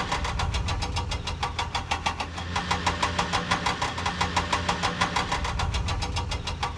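Vehicle engine sound effect idling with a steady, rapid chug of about nine beats a second over a low hum.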